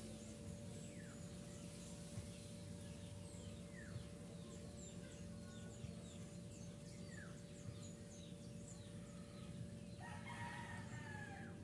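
A rooster crowing once, faintly, near the end, over small birds chirping faintly throughout and a low steady hum.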